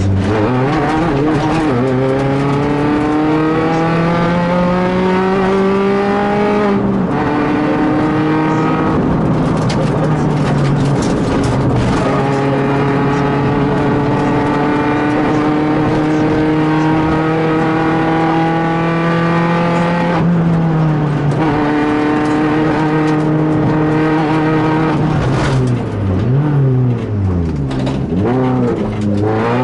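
Peugeot 206 rally car's four-cylinder engine heard from inside the cabin at full attack on a rally stage. The engine revs up through the gears, with a drop in pitch at each upshift, and holds high revs through the middle. Near the end the revs fall and rise quickly several times as the car slows and changes down for corners.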